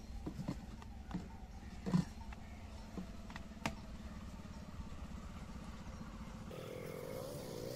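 A steady low engine hum with several sharp knocks and clanks from a metal fuel tank and a plastic jerrycan being handled. About six and a half seconds in, a hiss of liquid being poured from the jerrycan begins.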